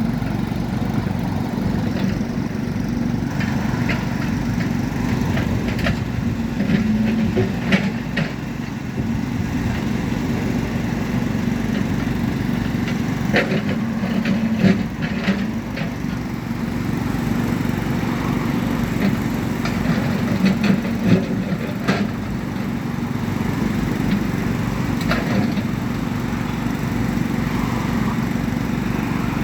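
Water tanker truck's engine running steadily at a constant pitch, with scattered short clicks and knocks around the middle.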